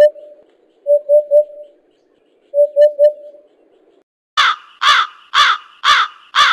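Eurasian hoopoe giving its three-note 'oop-oop-oop' call twice, then a crow cawing five times, about two caws a second.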